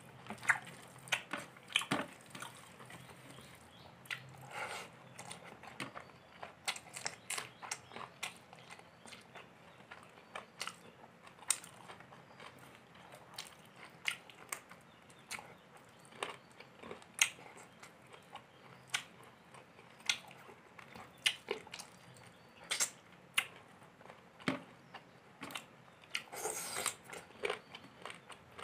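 A person eating rice and chicken curry by hand, chewing with many short, sharp, wet mouth clicks and smacks at an irregular pace.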